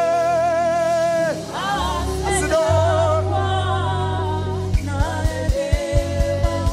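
Live gospel worship song: a singer holds long notes with a wide vibrato over a band with a steady bass line. A quick run of low thumps comes in the last two seconds.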